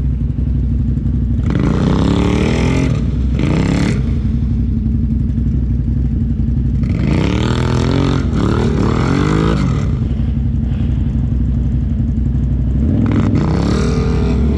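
ATV engines: one idles steadily while another revs hard in three surges, a few seconds each, its pitch climbing and falling as it spins its tyres trying to drive out of the mud.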